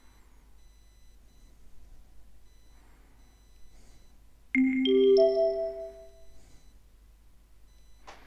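A three-note chime rising in pitch, the notes struck one after another and ringing out over about a second and a half, about halfway through: the signal tone of a recorded listening exam that marks the break between two test items. A faint click near the end.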